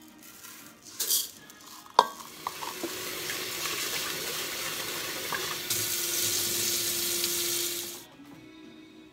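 Kitchen faucet running water into a rice cooker's inner pot to rinse rice: a steady hiss that begins after a sharp knock about two seconds in and cuts off abruptly about a second before the end. A brief rattle about a second in, with faint background music throughout.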